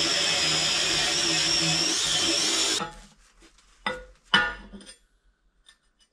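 Background guitar music that cuts off abruptly just under three seconds in, followed by two sharp metal knocks about half a second apart, each with a brief ring, as steel parts are handled.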